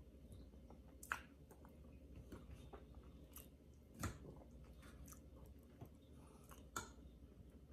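Faint chewing of food, with three sharp clicks of a fork and knife against the plate, about a second in, near the middle and near the end.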